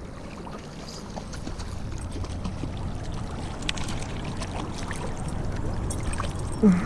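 Rushing river water, a steady noise with scattered small clicks. Near the end there is one short, louder pitched sound, like a brief voice.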